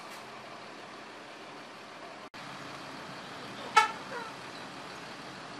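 Buses idling in a tight jam, with one short, loud horn toot about four seconds in. The sound cuts out for an instant just after two seconds.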